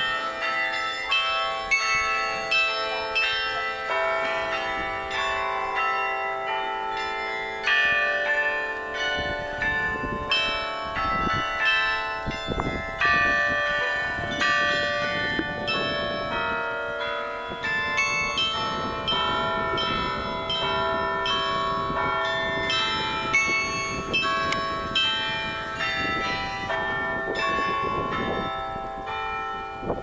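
Carillon bells ringing a tune: many tuned bells of graded sizes struck one after another, several notes a second, each tone ringing on and overlapping the next.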